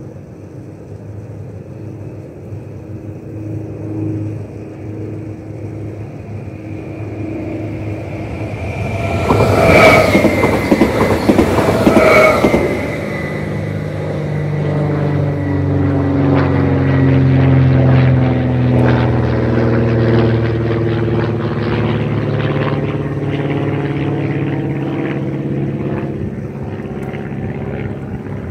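An SBB RABe 521 (Stadler FLIRT) electric multiple unit runs over a level crossing. It is loudest for about three seconds in the middle, with two short pitched tones about two seconds apart. After that its traction motors whine in several tones that glide in pitch and slowly fade.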